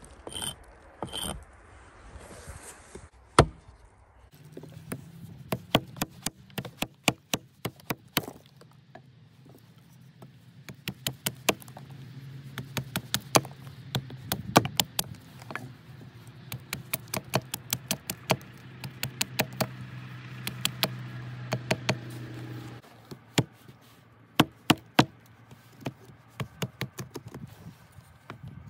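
Fiskars hatchet blade striking and shaving a branch against a chopping block to point a tent stake: runs of quick, sharp knocks, several a second, with short pauses between runs.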